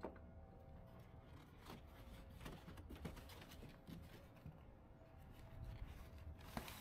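Faint rustling and scraping of flattened cardboard boxes being handled and pushed into a metal recycling bin, with scattered small clicks, over a low steady rumble.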